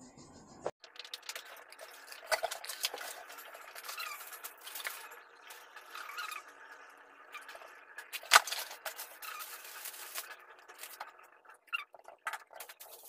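Handling sounds of unboxing: plastic packaging crinkling and cosmetic bottles and tubes being picked up and set down, a run of irregular small clicks and rustles, with one sharp click about eight seconds in.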